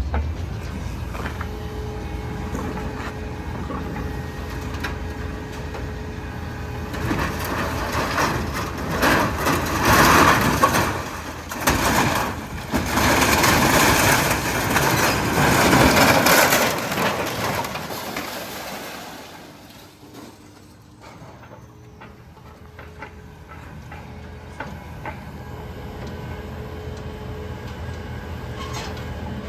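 Truck engine running steadily, with a louder, rough stretch of noise through the middle; the low engine rumble then stops, leaving a quieter steady hum.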